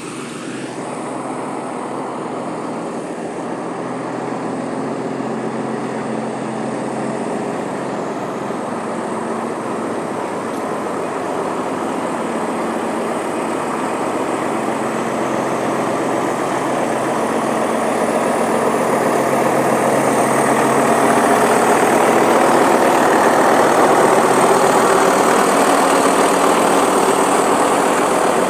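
Heavy diesel engine of road-construction machinery working bitumen onto a road, running steadily and growing gradually louder through the second half.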